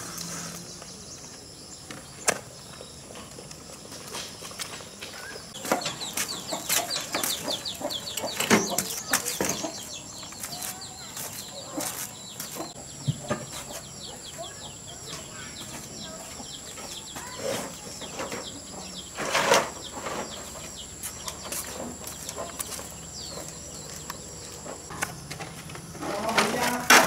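Scattered knocks and clatter from handling an old motorbike and its plastic body panels, with one louder knock about two-thirds through. A bird chirps in quick runs for a few seconds, and a steady high insect whine sits under it all.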